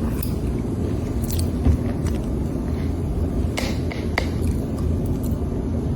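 A person biting and chewing food, with a few short crunchy clicks, over a steady low rumble.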